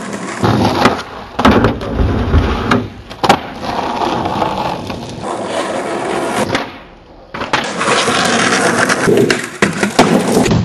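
Skateboard wheels rolling on pavement, with sharp clacks of boards popping and landing, in several abruptly cut-together bits.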